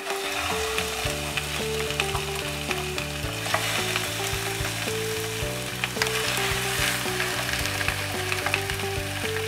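Hot oil sizzling and crackling in a frying pan as whole cleaver wrasse fry in it, with scattered sharp pops. Background music with a steady bass line plays underneath.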